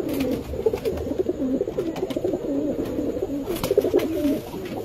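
Domestic pigeons cooing: low, wavering coos overlapping without a break, with a few sharp clicks, the loudest a little over three and a half seconds in.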